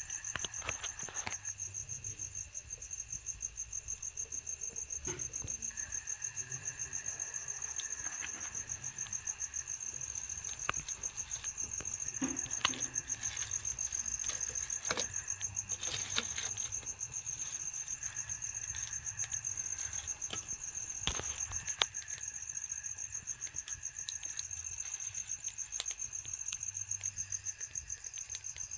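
Crickets chirping steadily, several pulsing trills overlapping, with scattered sharp pops and crackles from a wood campfire.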